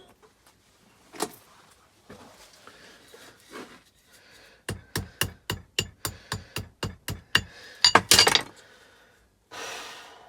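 Hammer blows on a magneto's metal parts: a single knock, then a quick run of sharp strikes, about five a second, for nearly three seconds, then a few louder, heavier blows. A brief rasping noise follows near the end.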